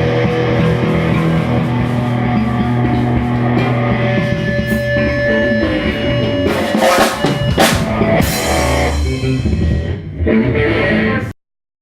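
Live rock band playing, with a drum kit and guitars and a couple of cymbal crashes midway. The music cuts off suddenly near the end.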